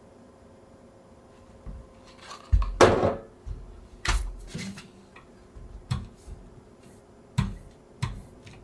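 Silkscreen printing tools and equipment being handled: a run of separate knocks and clicks of hard objects, loudest with a short clattering scrape about three seconds in.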